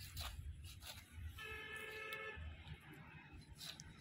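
A vehicle horn honks once, one steady note held for about a second, over a low rumble.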